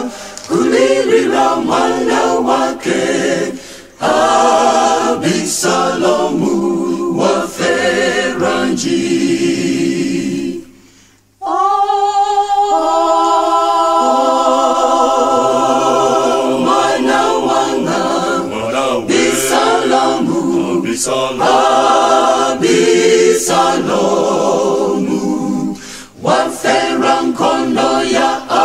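Choir singing a cappella, several voices in harmony with no instruments. Near the middle the singing stops for about a second, then comes back in on a long held chord.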